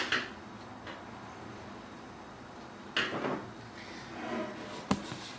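Parts of a motion-decoy stand being handled: a short sliding scrape about three seconds in and a sharp click near the end, as the adapter and conduit are fitted together.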